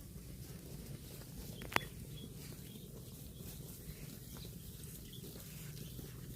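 Cow grazing: faint scattered crunches and rips of grass being torn and chewed over a steady low background noise, with one sharp click just under two seconds in.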